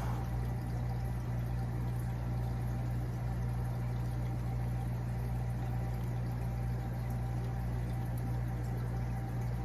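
Steady low electrical hum with a faint even hiss of bubbling water from running aquarium equipment.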